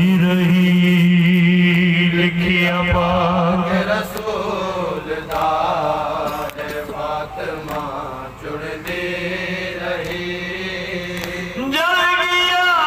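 A man's voice chanting a marsiya, the Shia elegy of mourning, unaccompanied and amplified through a handheld microphone. It opens on a long held note, goes on in wavering melodic phrases, and near the end rises louder and higher into a new line.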